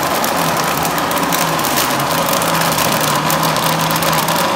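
Countertop electric blender running at a steady speed, grinding soaked pigeon peas with water into a slurry: a loud, even motor noise with a steady low hum.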